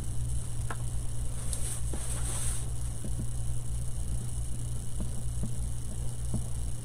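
Steady low electrical hum, with a few faint soft ticks as the nozzle of a small squeeze bottle of UV resin touches a painted wooden cutout, and a brief hiss about two seconds in.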